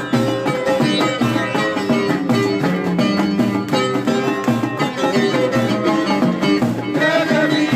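Traditional music played on plucked string instruments, a quick run of picked notes over a steady rhythm.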